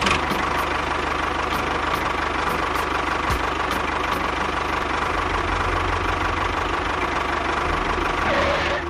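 Engine running steadily at idle, with a fast, even low chugging.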